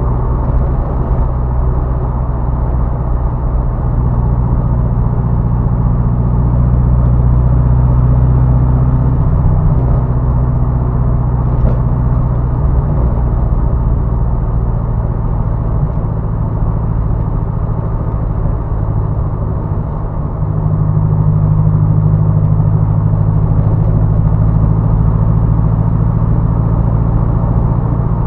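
Turbocharged car engine running steadily, its note shifting a few times as engine speed changes, with one short sharp sound about twelve seconds in.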